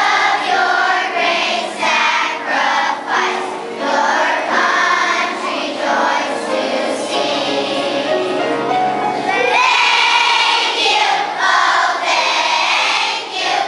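A large choir of primary-school children singing a song together.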